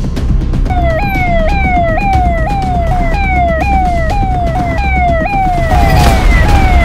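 Police siren sounding in a fast repeating cycle, each a quick rise in pitch and a slower fall, about two cycles a second. It starts again after a short break under a second in, over a steady low rumble.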